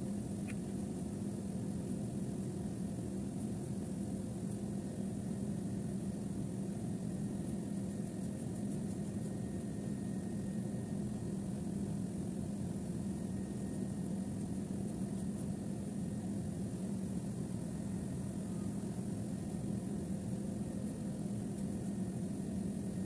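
Steady mechanical hum of running machinery, with a constant low drone and no breaks.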